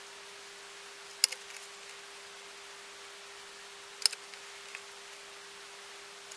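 Crop-A-Dile hand hole punch snapping through chipboard twice, about three seconds apart, each sharp click followed by a softer rattle of the tool.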